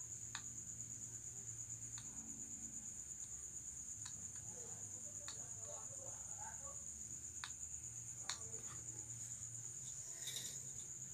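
Steady high chirring of crickets, with about eight faint clicks and ticks as a guitar string is handled.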